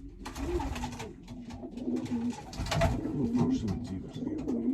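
Racing pigeons cooing in their loft, several low, wavering coos overlapping throughout, with a few short rustling noises, the loudest about three seconds in.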